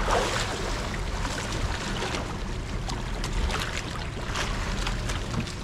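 Wind and water slapping against a small fishing boat at sea, with short splashes every second or so over a steady low hum.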